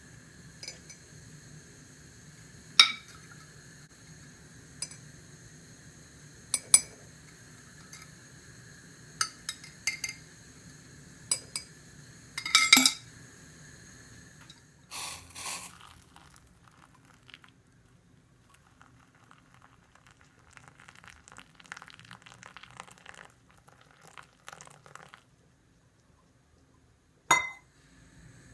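Glass bowls, dishes and utensils clinking and knocking against each other in a series of sharp clinks, then a stretch of softer scraping and rustling, with one more clink near the end.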